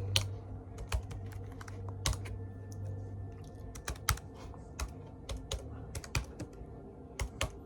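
Typing on a Chromebook laptop keyboard: scattered, uneven keystrokes and clicks. A low steady hum underneath stops about three seconds in.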